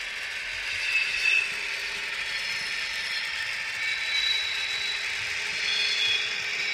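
H0-scale model train, an ÖBB class 2068 diesel model hauling hopper wagons, rolling along model track. The small metal wheels and gearing make a steady clatter, with a few short high squeals.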